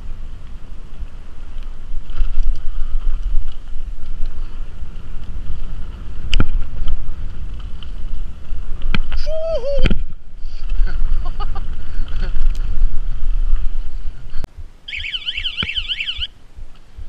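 Mountain bike ridden fast down a rough dirt singletrack: steady rumble of wind and trail noise on the camera, with knocks and rattles from bumps and a short squeal about nine seconds in. The rumble drops when the bike stops near the end, and a warbling high tone sounds for about a second and a half.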